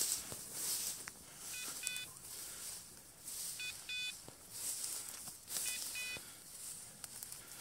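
Upland dog's beeper collar sounding three double electronic beeps about two seconds apart, over the swish of tall grass brushing against legs while walking through cover.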